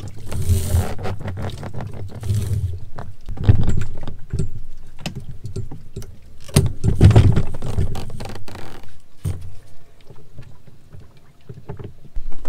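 Irregular knocks, clicks and scrapes as a small Honda outboard motor is hauled up on its lifting tackle against the sailboat's stern rail, with several low rumbling gusts of wind on the microphone.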